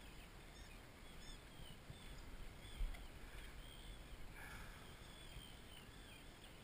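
Faint wind rumble and water noise around a small boat on open water, with scattered faint high chirps and a soft knock about three seconds in.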